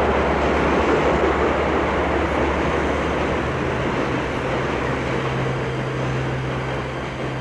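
Steady rumbling noise, with a low held musical note coming in about halfway through.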